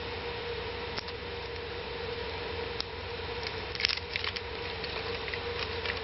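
A handful of light clicks and taps, bunched together about four seconds in, over a steady background hiss and hum.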